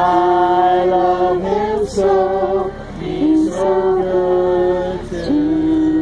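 A group of children and adults singing a gospel song together without instruments, in long held notes with short breaks between phrases.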